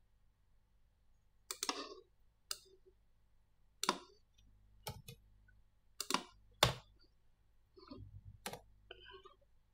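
Computer mouse buttons and keyboard keys clicking: about seven short, sharp clicks at irregular intervals over a faint low hum.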